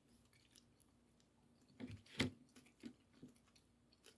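Faint eating sounds of a sushi roll being chewed: a few soft clicks and crackles, with one sharper click a little after two seconds in.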